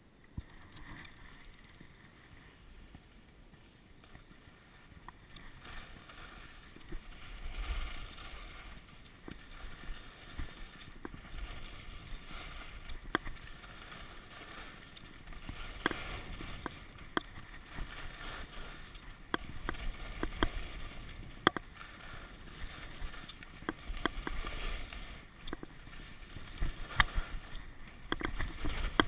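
Skis scraping and hissing over packed snow on a downhill run, growing louder after a few seconds, with frequent sharp clicks and knocks and a low wind rumble on the microphone.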